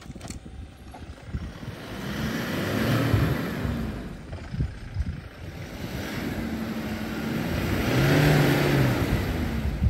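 Toyota Fortuner SUV's engine revving up and easing back down twice as the vehicle pulls slowly through deep grass and mud, its pitch rising and falling with each push.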